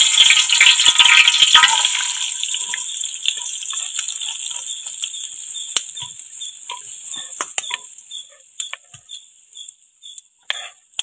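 Sliced onions dropped into hot oil in a wide aluminium pot over a wood fire: a loud sizzle with crackling at first, settling into a quieter crackle as the oil calms.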